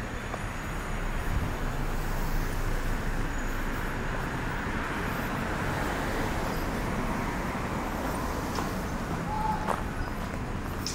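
Street traffic noise, swelling in the first half as a vehicle goes by, with a brief tone and a click near the end.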